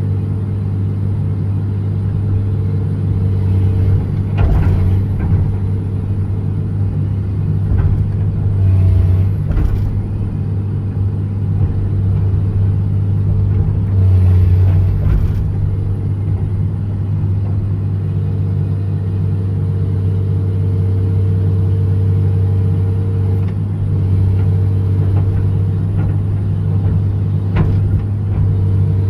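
John Deere 200LC (Hitachi EX200) excavator's diesel engine running steadily under digging work, with the bucket scraping and scooping soft, muddy soil. The engine swells louder briefly several times as the hydraulics take load.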